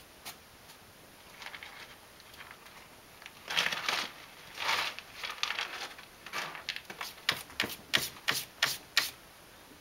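A cat scratching in litter inside a hooded litter box. A few faint scrapes come first, then bursts of rustling digging from about three and a half seconds in, and a run of quick sharp scratches, about three a second, near the end.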